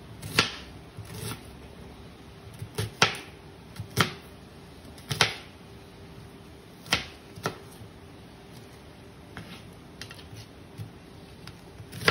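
Chef's knife dicing an onion on a plastic cutting board: sharp knocks of the blade striking the board at an uneven pace, about one a second.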